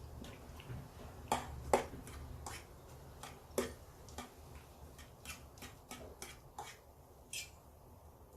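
Irregular sharp clicks and smacks close to the microphone, from eating and handling food, about a dozen over the stretch, the loudest in the first few seconds.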